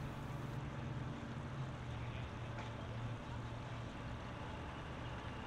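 Outboard motor on a boat grounded in mud, running with a steady low hum.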